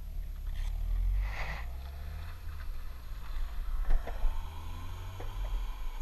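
Skateboard wheels rolling over asphalt: a steady low rumble with wind buffeting the board-mounted camera, and a few light clicks and knocks about four seconds in.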